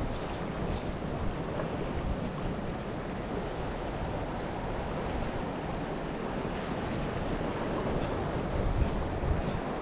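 Wind buffeting the microphone over surf washing against the shore rocks, a steady rushing noise, with a few faint clicks about half a second in and again near the end.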